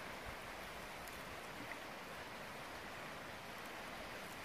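Steady, even rush of a shallow, rocky stream running over riffles.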